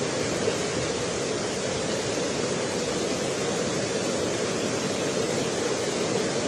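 Swollen, flooded river rushing past in a steady, unbroken wash of noise.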